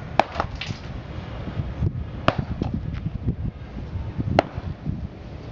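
Heavy hammer blows breaking up an old concrete driveway slab: three sharp, ringing strikes about two seconds apart, with smaller knocks and scraping between.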